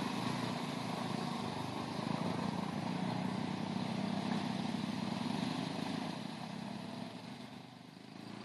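Quad bike (ATV) engines running steadily, fading over the last couple of seconds.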